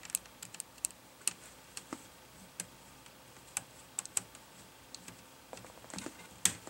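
Small PH00 Phillips precision screwdriver turning out a tiny side-mounting screw from a laptop LCD panel: light, irregular clicks of the tool tip and screw, several close together in the first second and a few more near the end.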